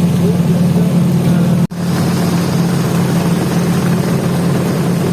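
Motorboat engine running steadily at cruising speed, a low, even drone with water and wind noise over it. The sound cuts out for an instant about a second and a half in, then carries on.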